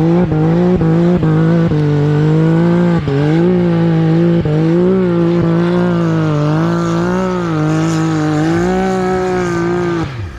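Side-by-side UTV engine held at high revs under load in snow, its pitch wavering up and down with several brief dips, then the revs drop away quickly near the end.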